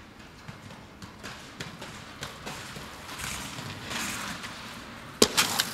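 Aggressive inline skate wheels rolling over concrete, with scattered clacks. Near the end comes a sharp, loud impact of the skates hitting the ground or an obstacle, followed by a few quick clatters.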